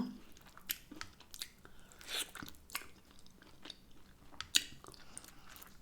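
Close-up chewing of hot and spicy chicken wings: irregular small clicks and crunches of the mouth working the meat.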